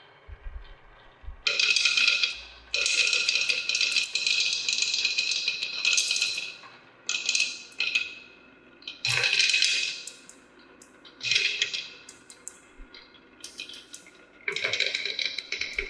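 Marbles rolling and clattering down a toy wave-slope marble-run track. The rattling comes in several runs of one to five seconds, with short quiet gaps between them.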